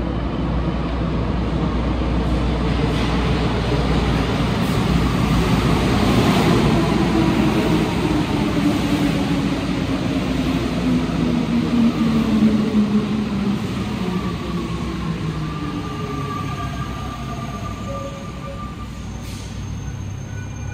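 Interior of an Alstom NS-93 rubber-tyred metro car running between stations: a steady low rumble of the running gear, with the electric drive's whine gliding slowly down in pitch through the middle and settling into steady higher tones near the end.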